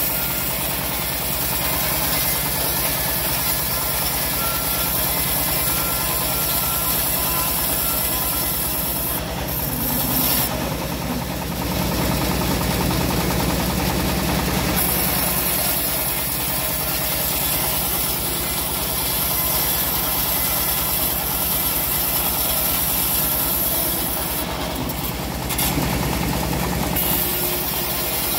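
Homemade band sawmill running steadily as its blade rips lengthwise through a teak slab: a continuous mechanical drone under a high cutting hiss that eases off briefly twice, about ten seconds in and near the end.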